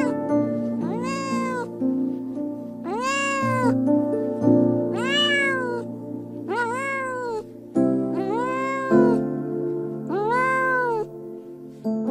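A cat meowing over and over: six calls about two seconds apart, each rising then falling in pitch, over soft background music with sustained low notes.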